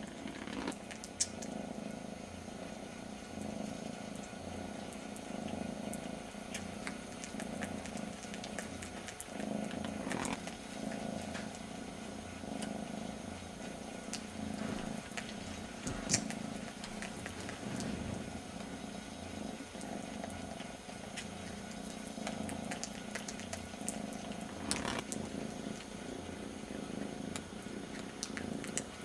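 A kitten purring steadily, the purr pulsing in an even rhythm with each breath, with a few short clicks scattered through it.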